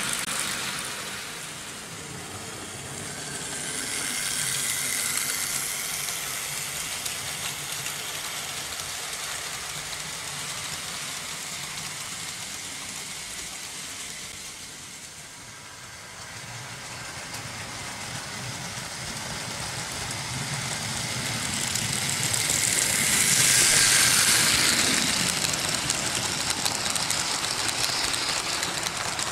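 Vintage Märklin H0 model trains running on metal M track: a steady running noise of motors and wheels on the rails. It swells as trains pass close, loudest about three-quarters of the way through.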